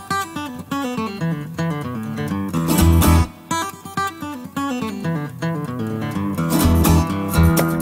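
Background music led by a plucked acoustic guitar, its notes stepping up and down over a low bass.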